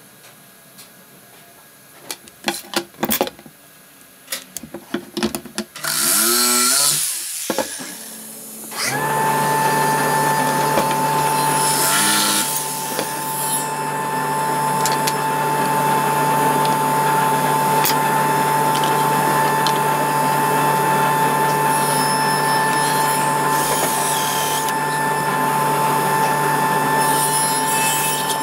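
A few knocks of wood and tools being handled, then a power tool's motor speeds up and, after a short drop, runs loud and steady at one pitch for about twenty seconds.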